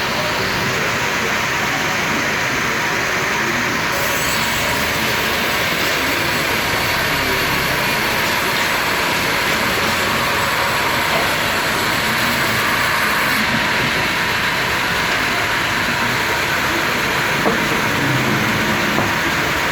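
Sawmill machinery running steadily: a loud, continuous, even mechanical noise, a little brighter in tone for several seconds from about four seconds in.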